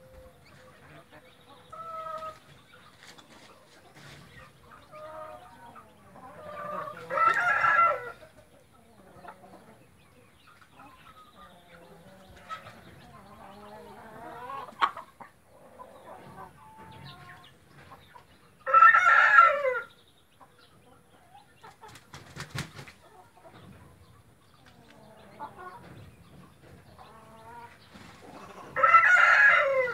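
Chickens clucking softly, with a rooster crowing loudly three times, about ten to eleven seconds apart.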